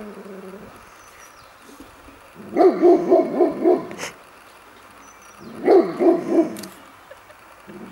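Curly-coated retriever barking in two quick bursts: about five barks a third of the way in, then about four more a little past the middle.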